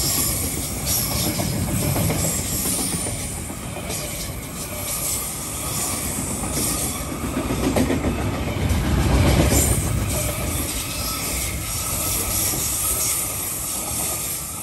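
KiwiRail freight train's curtain-sided wagons rolling past close by: a continuous rumble of steel wheels on rail with scattered clacks and a faint wheel squeal. The rumble swells about two-thirds of the way through.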